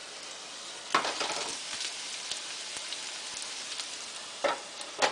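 Potato fries frying in hot oil, a steady crackling sizzle, with a few sharp clatters: one about a second in and two near the end.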